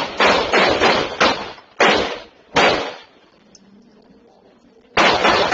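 Gunfire picked up by a doorbell camera's microphone: a rapid volley of gunshots at about four a second, then two slower shots. After a lull of about two seconds, a new volley starts near the end.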